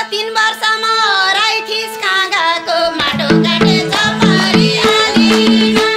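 Nepali dohori folk music: a singing voice carries its line until about three seconds in. An instrumental passage then takes over, with repeating melodic note patterns over a steady rhythmic beat.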